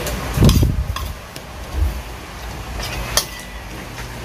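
A metal spoon clinking and scraping against a ceramic bowl as rice is mixed, with a few sharp clicks and a heavier bump about half a second in.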